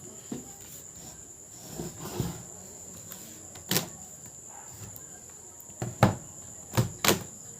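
Scattered sharp clicks and taps as an opened laptop's casing and parts are handled for cleaning, the loudest about six seconds in and two close together near the end. A steady high insect drone runs underneath.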